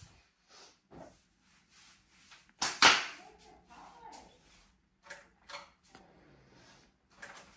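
Scattered short rustling and handling noises, with a sharp, loud double noise about two and a half seconds in.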